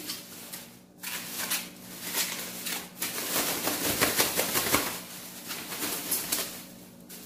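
Thin plastic bag crinkling and rustling as it is handled and diced blanched chayote is tipped into it from a plastic colander. A faint steady hum runs underneath.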